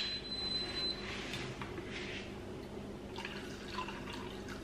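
Water poured from a kettle into a saucepan of cut carrots and green beans, splashing and trickling from about three seconds in. A short high beep sounds at the start.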